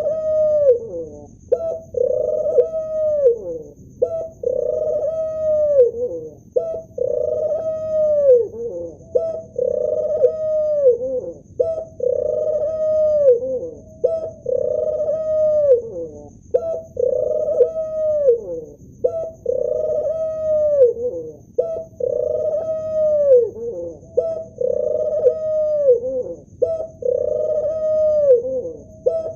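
Male ring-necked dove (Barbary dove) cooing over and over. Each coo is about a second long, held and then dropping in pitch at the end, and they come about one every two seconds.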